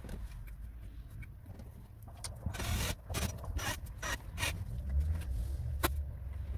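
A cordless drill/driver runs in a few short bursts, driving screws through a speaker adapter ring into a car door, mixed with knocks and scrapes from handling the ring. A single sharp click comes near the end, over a steady low rumble.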